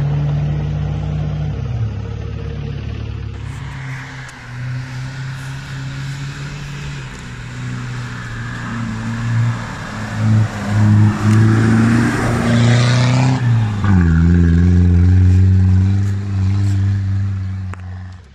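Four-wheel-drive engines revving under load on steep forest climbs, in three edited clips. First a Suzuki Vitara's 1.6 petrol engine, then a Toyota LJ70's 2.4 engine pulling hard with loud churning noise over its revs. Near the end, a Jeep's 2.1 engine labours at steady revs.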